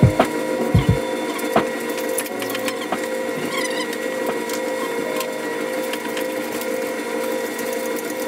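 Engine being lifted out of a 2002 Mitsubishi Lancer on a chain engine hoist: a few sharp knocks in the first second and a half and creaking from the load. A steady hum runs under it.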